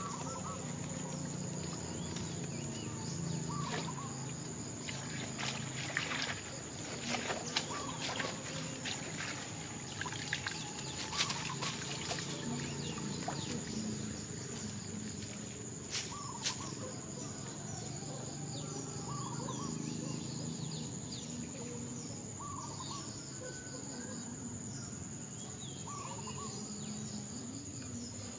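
Insects droning steadily with one high whine, with short chirps over it. A few sharp clicks come about halfway through.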